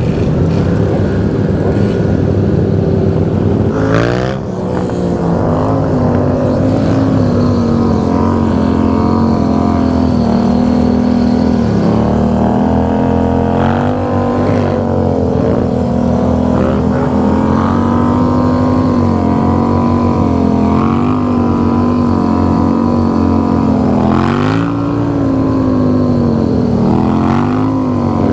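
Motorcycle engines running at riding speed in a group ride, one engine note steady and close. The pitch dips and climbs again about four seconds in, as after a gear change, and dips and rises once more near the end.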